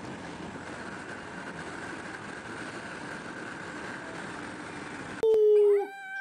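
Steady rush of wind and road noise through the open window of a moving car. About five seconds in it cuts to a dog howling loudly, holding one note and then rising and falling in pitch.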